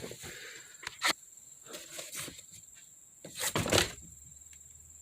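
A few knocks and rustles of someone moving about and handling things, with the loudest pair of knocks about three and a half seconds in.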